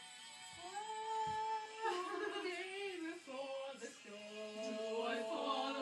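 Quiet background music: held notes, then a sung melody from about two seconds in.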